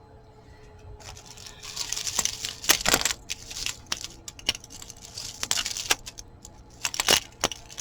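Jewelry and its packaging being handled: a rustling crinkle with many small, irregular clicks and clinks.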